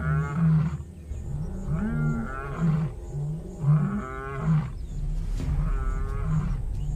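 Lion roaring bout: three long roars that rise and fall in pitch, each trailing into a run of short, low, repeated grunts.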